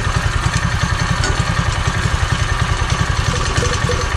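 Small pull-start gas engine in a homemade Power Wheels running steadily through a newly fitted muffler, an even pulsing exhaust note that the builders call so quiet.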